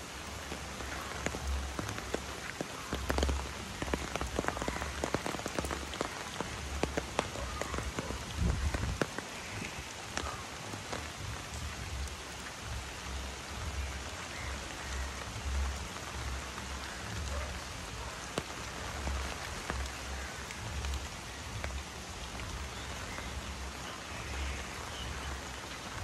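Steady rain falling, with heavy drops tapping sharply on an umbrella overhead, densest in the first ten seconds or so, over low dull thuds.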